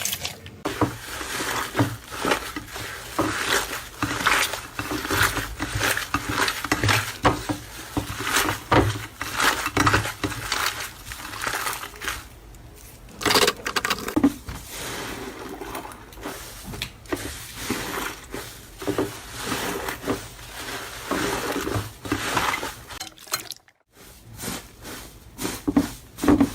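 Slime being worked by hand, giving a dense run of irregular clicks, crackles and clinks, with a short pause about three-quarters of the way through.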